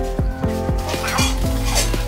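Background music with a steady beat, about two beats a second, over held tones.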